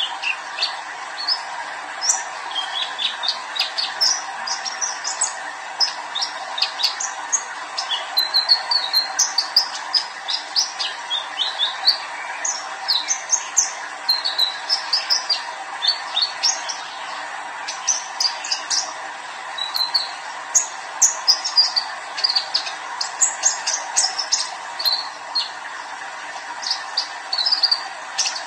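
Young male sunbird (kolibri ninja) singing: a nearly continuous run of quick, high, thin chirps and short twittering phrases with brief pauses between bursts.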